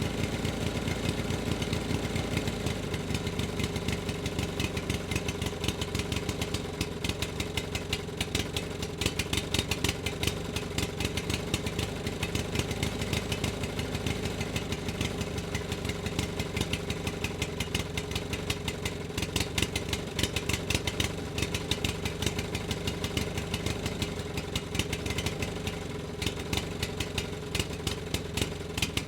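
A motor running steadily at an even speed, its rapid, regular firing pulses holding a constant pitch.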